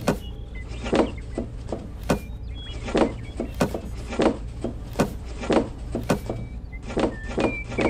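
A string of light knocks as toy carrots are set one after another into a plastic toy trailer bed, about one or two a second, over a steady low hum.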